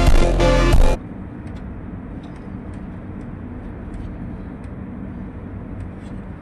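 Background pop music that cuts off about a second in, followed by a steady low machine hum with a few faint ticks.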